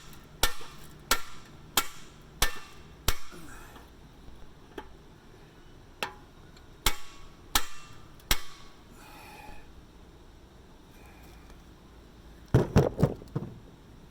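Big hammer striking a tapered bottle jack that is being driven into the end of a rusted exhaust pipe to stretch it open. The strikes are sharp and ring slightly, about one and a half a second: five, then a pause, then four more. A short clatter of heavier knocks comes near the end.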